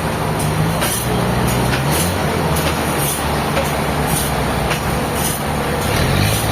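Sawmill machinery running under power: a steady engine hum, with a short high hiss repeating about every two-thirds of a second.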